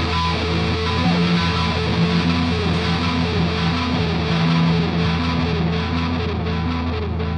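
Heavy psychedelic rock trio playing live: a repeating distorted electric guitar riff over a sustained electric bass and drums.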